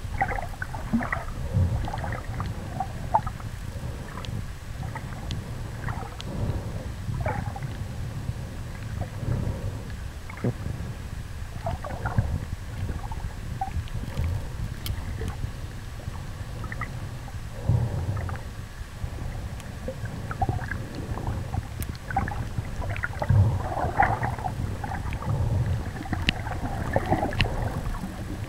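Muffled underwater sloshing and rumbling picked up by a compact camera sealed in a soft waterproof bag, swelling and easing irregularly, with scattered faint clicks.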